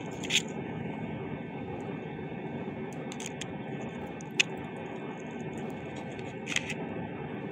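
Steady background drone with a faint hum, broken by a few short clicks.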